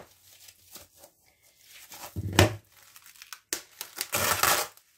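Cling film being pulled off its roll and crinkling, with a sharp knock about two and a half seconds in.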